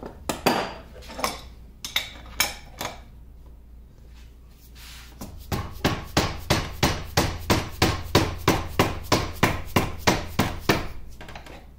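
A hammer strikes the handle of a large crescent wrench set on a nut of a lathe's gearbox apron, to knock the nut loose. After a few scattered knocks, a fast even run of about twenty blows comes at three to four a second.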